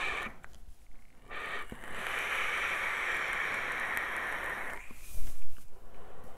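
Long inhale through an electronic cigarette: a steady airy hiss of air drawn through the atomizer for about three and a half seconds. It is followed, about five seconds in, by a brief louder gust as the vapour is exhaled.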